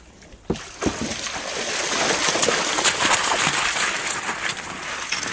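Water splashing and sloshing against a canoe's hull, starting suddenly about half a second in and growing louder, with many small splashes through it.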